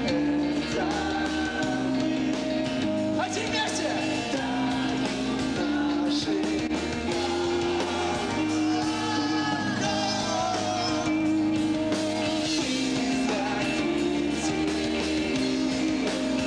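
Live emo rock band playing a song, with electric guitars, bass and drums under a sung vocal line.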